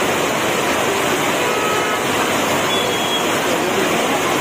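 Heavy rain falling in a steady, even rush.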